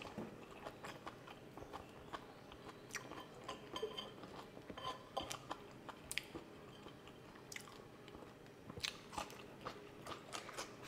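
A person chewing food close to the microphone, with soft wet mouth clicks and smacks coming irregularly throughout.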